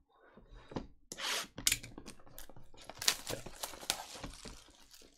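A trading-card box's packaging being torn and opened by hand. A tearing hiss comes about a second in, then a run of crinkling and sharp crackles as the wrapping and cardboard are handled.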